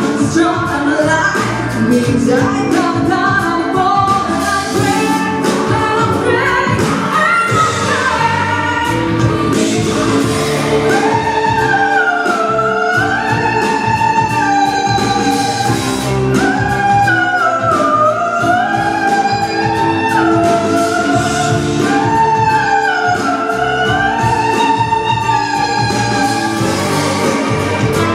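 A woman singing solo over instrumental accompaniment with a steady beat. Her long held notes waver with vibrato, and her phrases rise and fall.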